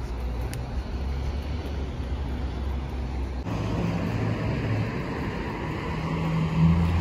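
Low, steady rumble of road traffic, with a vehicle engine hum growing louder near the end.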